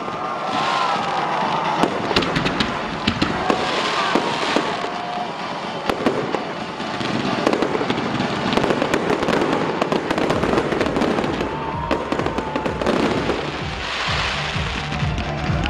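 Fireworks display: a dense, continuous run of crackling and bangs from exploding shells, with music playing underneath.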